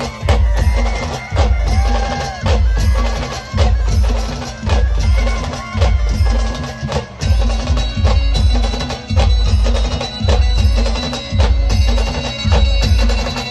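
Khandeshi band playing a Saptashrungi Devi devotional song. A heavy bass drum beats about once a second under sharp clicking percussion and a melody line.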